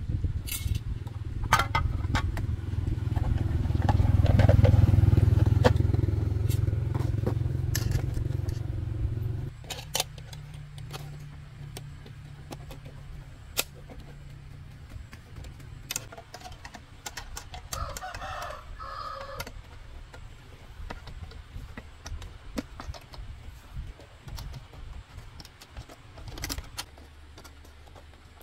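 Motorbike engine starting up and running hard, getting louder for the first few seconds, then dropping back abruptly about nine seconds in to a lower idle that fades out around sixteen seconds. Scattered light clicks and knocks follow.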